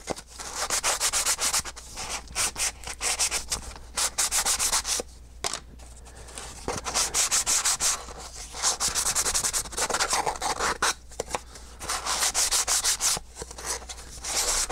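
Hand sanding laser-cut wooden parts with a sanding pad: quick back-and-forth scrubbing strokes, several a second, in short runs with brief pauses between.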